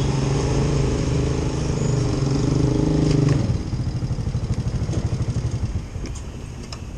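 Petrol pump running as fuel is pumped through the nozzle into a plastic bottle: a steady hum that stops about three and a half seconds in, followed by a quieter pulsing hum that fades out.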